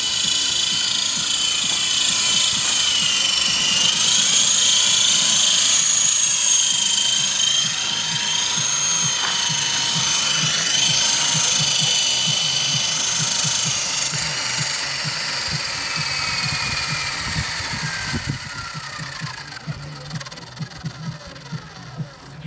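Esky Big Lama coaxial electric RC helicopter flying: a high motor-and-gear whine with rotor whir, its pitch sweeping up and down. Over the last few seconds the whine glides downward and fades as the rotors spin down.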